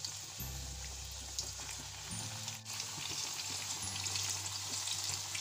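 Chicken box patties frying in hot oil in a pan: a steady bubbling sizzle of the oil around the pastry. Soft background music plays underneath.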